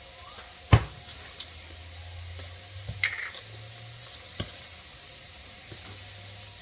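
Chopped mushrooms and zucchini frying in a pan, a faint steady sizzle, with a few sharp clicks and knocks, the loudest about a second in.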